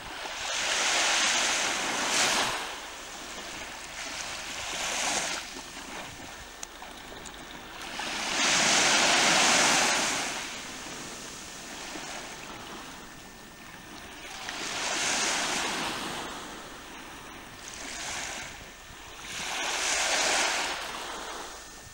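Sea water washing and splashing against a Hobie Cat catamaran's hulls, rising and falling in about six surges of one to two seconds each.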